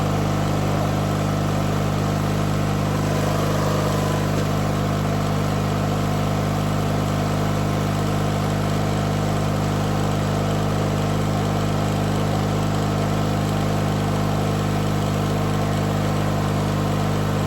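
1997 MTD Yard Machines riding mower's engine running steadily at idle just after a cold start.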